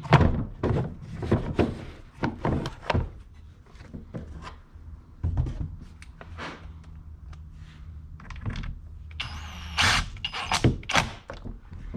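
Knocks and clatter of tools and chainsaw parts being handled, then near the end a cordless impact driver runs for about a second with a high whine and a few sharp hits.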